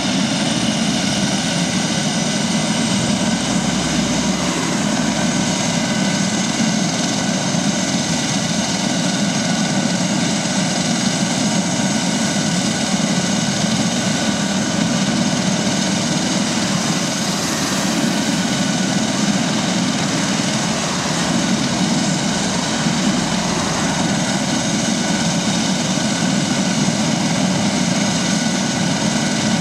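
Airbus H145 helicopter running on the helipad with its rotor turning: a steady whine from its twin turboshaft engines at several pitches over a dense rotor hum, held at ground run before lift-off.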